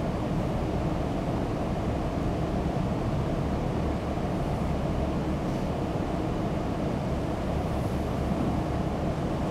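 Steady low rumble of classroom room noise, an even background hum and hiss with no distinct events.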